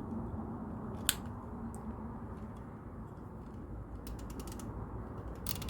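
Plastic LEGO mechanism of the Minifigure Vending Machine set being worked by hand, clicking like a ratchet. There is a single click about a second in, then fast runs of clicks about four seconds in and again near the end.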